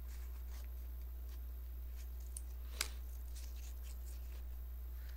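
A small rolled paper slip being unrolled by hand close to the microphone: faint paper rustling and crinkling, with one sharper crackle about three seconds in.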